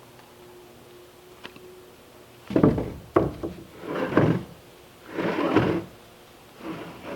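Wood scraping and sliding in five short rasping strokes about a second apart, the first starting with a sharp knock.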